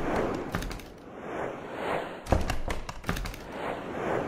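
Sound effects for an animated logo reveal: repeated swelling whooshes, about one a second, with sharp hits and thuds among them, the loudest hit a little past halfway.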